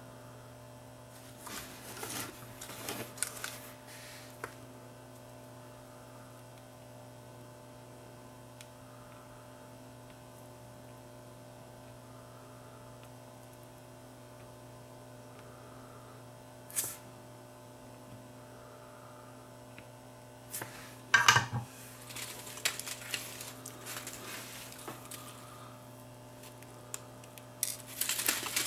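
Steady mains hum with scattered light clicks and scrapes of small hand tools on a circuit board: a few early on, a single click in the middle, and a louder run of handling about three-quarters of the way through.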